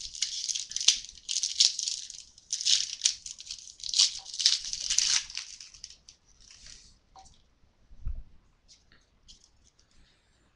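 Typing on a computer keyboard: quick, irregular runs of keystrokes for about five seconds, then fainter scattered clicks, with a soft low thump about eight seconds in.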